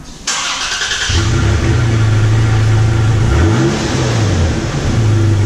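Toyota Tacoma cold start through its stock OEM exhaust, heard at the tailpipe: the engine fires with a sudden burst, then settles into a steady fast idle, with a brief rise and fall in pitch midway.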